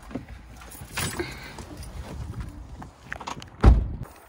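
Footsteps and small knocks as a person moves about by a car, then a car door slams shut near the end with one heavy thump.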